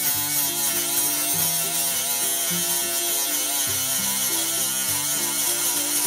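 Cordless rotary tool running with a sanding bit pressed against a metal lampshade fitting, its whine wavering as it bears on the metal, over background music.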